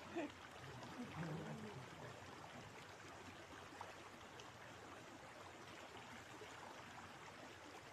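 River water flowing, a faint steady rushing.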